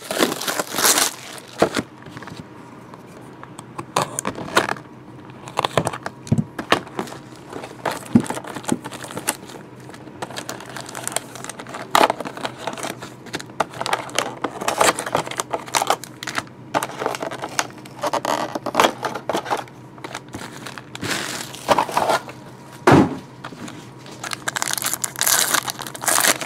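Plastic wrapping crinkling and cardboard rustling and tearing as a sealed box of football trading cards is unwrapped and opened by hand. The sound comes in an irregular run of crackles, tears and sharp clicks.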